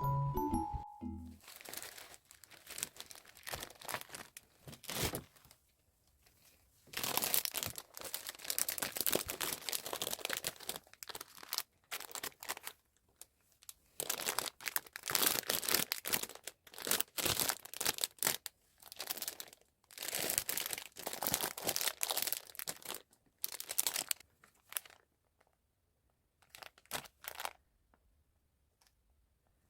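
Packaging being crinkled and torn open by hand in irregular bursts with short pauses between, after a snippet of background music that stops about a second in.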